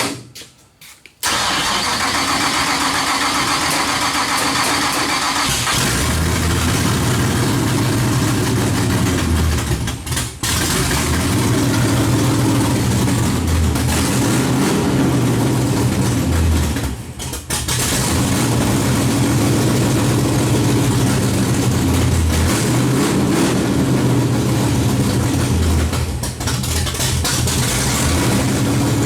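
Small-block Chevy race engine catching about a second in, then running loud with repeated blips of the throttle, the pitch rising and falling, and two brief drops in level.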